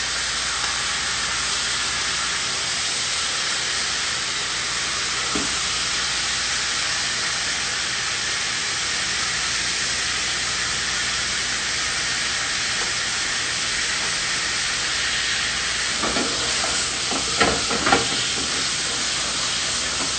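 Pork loin sizzling steadily in olive oil in a pan as it browns, with a few short knocks near the end.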